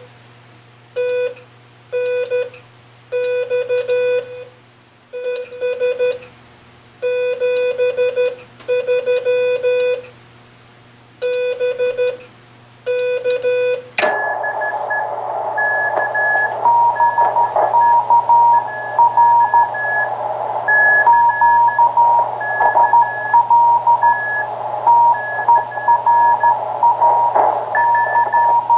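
Morse code keyed as a single clean tone, the operator's own CW signal from the Johnson Navigator transmitter, sent in irregular dots and dashes. About halfway through, a click and a switch to the Drake 2-C receiver's audio: steady band hiss with another station's fainter Morse reply, and a second keyed signal higher in pitch, which is interference on the band.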